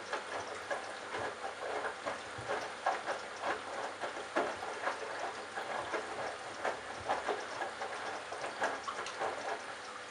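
Candy Bianca washing machine drum tumbling a wet load of bathrobes and towels: water sloshing and laundry splashing down in irregular strokes, a few a second, over a faint steady hum.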